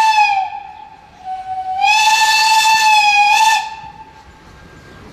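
Steam whistle of a Bavarian S 3/6 steam locomotive: a blast that sags in pitch as it shuts off just after the start, then a second blast of about two seconds that begins on a softer, lower note, swells, and sags again as it closes.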